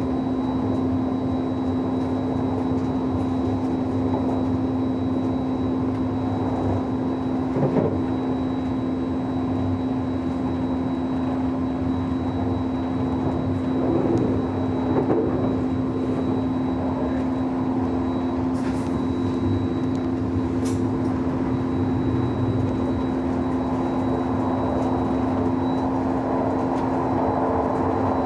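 Interior ride noise of a DB ICE3 high-speed train running at speed: a steady rolling rumble under a constant hum. A brief knock comes about eight seconds in, and a couple more around the middle.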